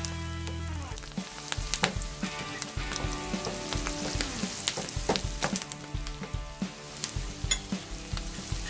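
Sliced shallots, curry leaves and chillies sizzling in coconut oil in a pan, stirred with a wooden spatula that now and then knocks and scrapes against the pan.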